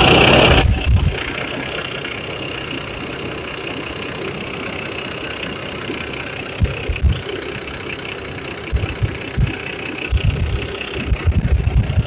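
Cummins ISX diesel engine idling steadily, running again after a blockage in its fuel check valve was cleared. A loud rush of noise in the first second settles into the steady idle, with scattered low thumps in the second half.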